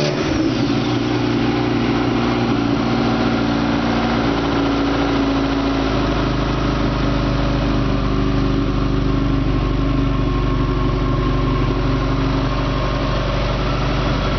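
Subaru EJ22 2.2-litre flat-four engine running on a test stand. It catches at the very start and then idles steadily, its note shifting slightly about six seconds in.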